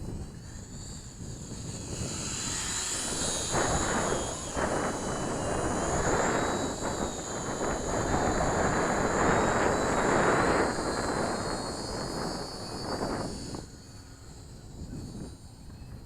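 High-pitched whine of the EasySky P-38 micro RC plane's twin small electric motors and propellers, wavering in pitch as it flies. A rushing noise swells as it comes close through the middle and drops away about three-quarters of the way in.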